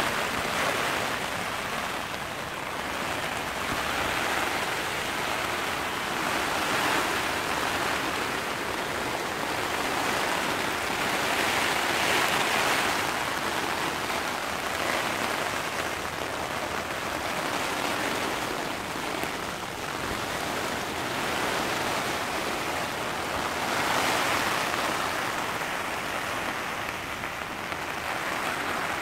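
Heavy rain on the flysheet of a Vango Ark 300 Plus tent, heard from inside, with wind buffeting the tent. The noise swells and eases every few seconds as the gusts come and go.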